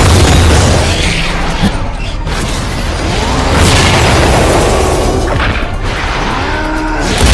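Anime sound effects over music: heavy booms hit at the start, about halfway and near the end, with sweeping tones rising and falling between them.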